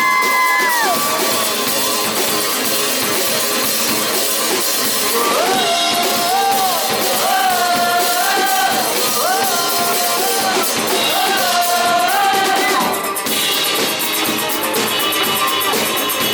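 Live rock band playing with drum kit, a full dense backing, and a melody line that slides up into long held notes several times.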